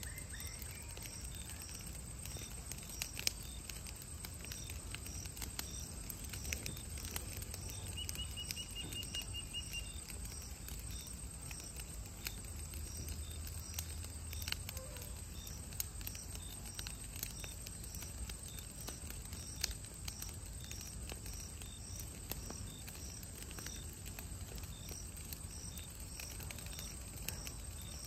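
Outdoor field ambience: a high, thin chirp repeats steadily a bit under twice a second, with a short rapid trill about a third of the way in and a few faint clicks over a low rumble.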